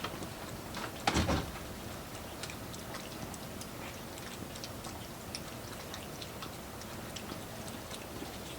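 Cats eating from their dishes: faint, irregular small clicks of chewing and licking. A single louder knock about a second in.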